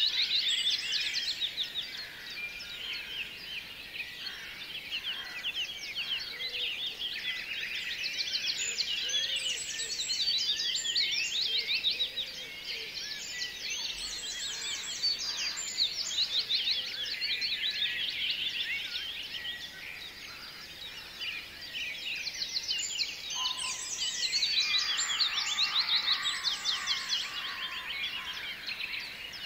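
A dense chorus of small birds chirping and trilling, many quick high calls overlapping without pause. It swells and fades in waves, loudest near the start, in the middle and a few seconds before the end.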